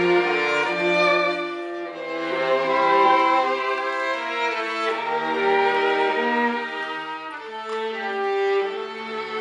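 Live classical music led by a violin playing held, legato melody notes, with a lower part sounding beneath at times.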